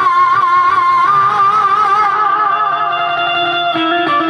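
Live devotional music through a PA: a wavering held vocal note with strong vibrato trails off in the first couple of seconds, and an instrumental melody in steady stepped notes takes over.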